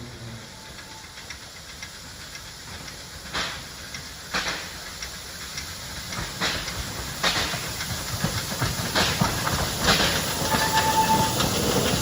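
Vale of Rheidol narrow-gauge steam locomotive approaching, its exhaust chuffing about once a second over a steady steam hiss, growing louder throughout.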